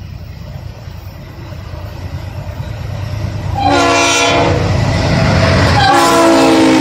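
Norfolk Southern freight train's diesel locomotives approaching with a building low rumble, then the lead locomotive's multi-tone air horn sounds: a short blast a little over halfway in and a second, held blast near the end, both loud as the engines pass close.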